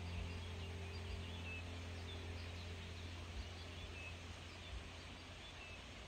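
Birds of a crowded waterbird colony calling: many short, high chirps scattered throughout, over a steady low hum.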